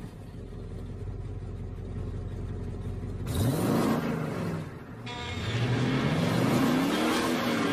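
Car engine revving: a low steady rumble, then from about three seconds in the engine is revved several times, its pitch sweeping up and falling back.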